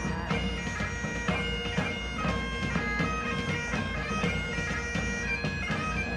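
Bagpipe tune played over a steady drone, the melody moving quickly from note to note.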